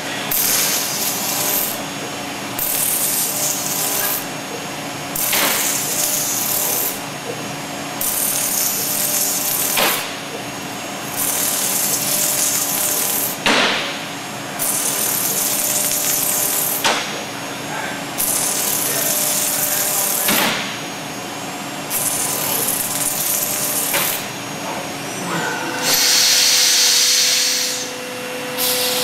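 CNC router spindle cutting Kevlar prepreg-faced X-Board in repeated passes. A hissing cutting noise rises and drops every couple of seconds over a steady machine hum, with a longer, louder cut near the end.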